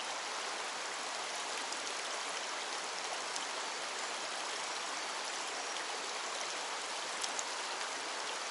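Mountain stream water rushing steadily, an even hiss of flowing water.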